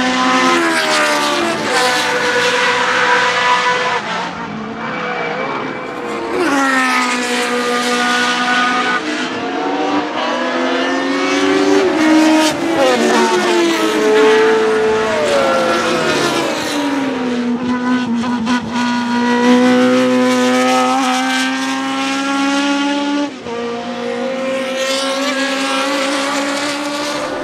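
Tyrrell 012's Cosworth DFY V8 Formula 1 engine at racing revs. Its pitch repeatedly rises as the car accelerates through the gears and falls away as it slows for corners.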